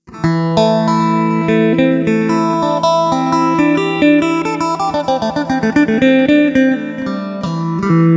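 Acoustic-electric phin, the Isan Thai lute, played: a lively plucked melody over a steady open-string drone, starting suddenly, with a fast run of quick notes around the middle.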